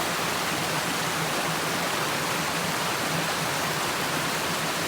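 Steady rushing of water over a small spring-fed waterfall, an even hiss with no breaks.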